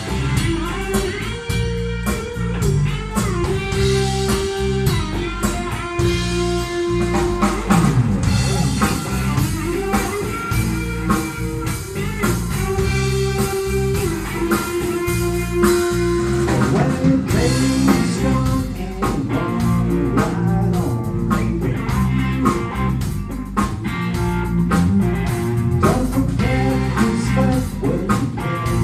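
Live band playing: electric guitar, bass guitar and drum kit, with a melody of long held, bending notes over the beat.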